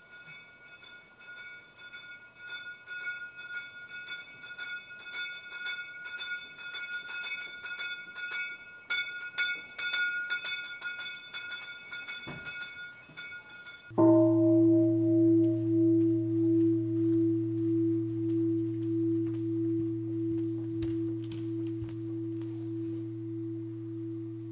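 A small hand bell rung rapidly and continuously, growing louder as it comes nearer: the monastery's early-morning wake-up bell. About halfway through, a large bowl bell is struck once, rings low and dies away slowly with a pulsing beat.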